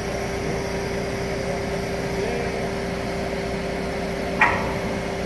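Crane's engine running steadily with a constant hum while it holds a 30-ton steel barge on its slings. A single sharp knock sounds about four and a half seconds in.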